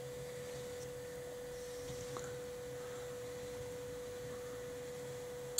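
Old car windscreen-wiper motor running under 12 volts with a steady high whine and a faint low hum as it lowers a coop door on its rope; it cuts off with a sharp click near the end as the door reaches the bottom.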